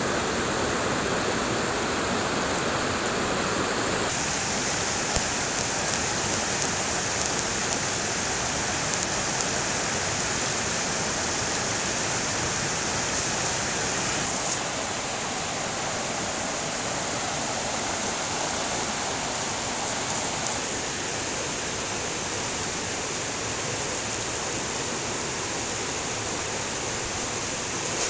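Fast mountain river rushing over rocks: a steady, even rush of water that drops a little in level about a quarter and again about halfway through.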